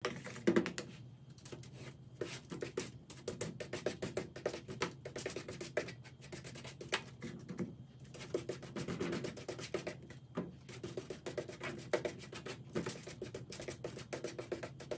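Close-up handling sounds of a tint brush and fingers on aluminium foil and wet hair: dense, irregular crinkling, tapping and scratching over a steady low hum.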